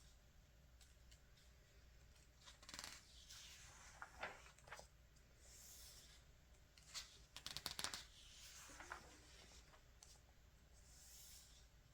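Faint rustling and sliding of glossy magazine pages being turned by hand, with several soft swishes and a cluster of crisp paper ticks about two thirds of the way in.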